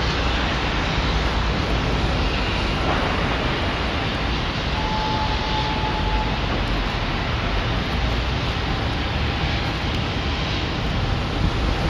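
Steady wind rumble on the microphone over a distant background hum. A faint thin tone sounds for about a second and a half midway.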